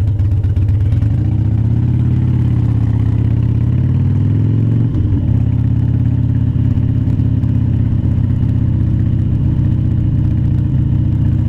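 Harley-Davidson Dyna Wide Glide's air-cooled Twin Cam 88 V-twin engine accelerating from low speed: the engine note climbs, drops sharply at a gear change about five seconds in, then runs steady under way.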